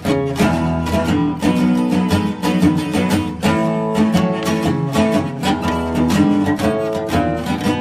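Background music: acoustic guitar playing steadily, plucked and strummed notes in a quick rhythm.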